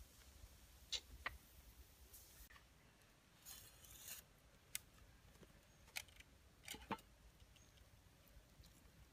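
Faint sharp knocks and a brief scraping slice from a large knife cutting a lime against a piece of wood.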